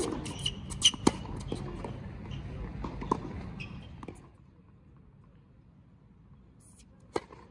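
Tennis ball being struck by rackets and bouncing on a hard court during a practice rally. Several sharp hits come in the first three seconds, the sound turns quieter after about four seconds, and one more sharp hit comes near the end.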